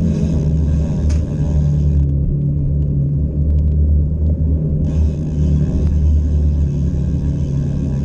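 Steady low rumble of wind and tyre noise on a bicycle-mounted camera rolling over asphalt, with a fainter hiss that comes in for the first two seconds and again from about five seconds on.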